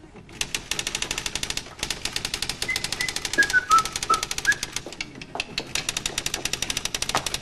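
Fast typing on a typewriter: rapid key strikes, about ten a second, broken by a few short pauses.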